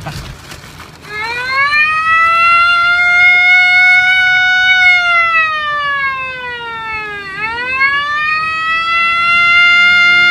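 A wailing siren. It starts about a second in and rises to a held high tone, then sweeps down and back up around two-thirds of the way through, and holds high again.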